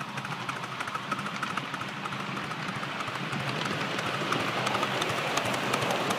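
Miniature ride-on live-steam locomotive running with a loaded passenger train, its exhaust puffing and wheels clicking on the rails, getting louder as it approaches from about halfway through.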